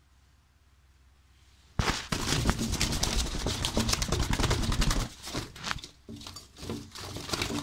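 Handling noise on a phone's microphone: loud rubbing and crackling with many clicks and knocks. It starts suddenly about two seconds in.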